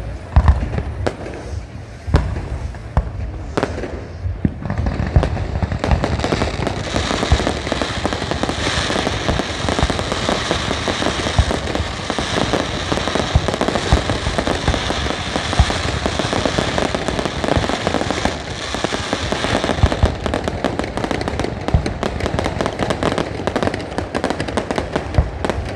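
Fireworks display: a few deep booms at first, then from about six seconds in a dense, continuous crackling of countless rapid pops, thinning slightly near the end.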